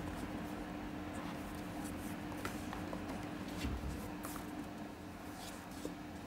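Hands turning and handling a cardboard headphone box: soft scraping and a few light taps, over a steady low hum.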